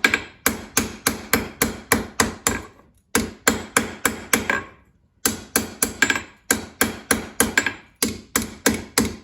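Hand hammer striking hot 5160 coil-spring steel on an anvil: quick, even blows at about four a second in runs, with brief pauses between them. The hammering rounds over the edges of a slot punch so that it will slide through with less friction.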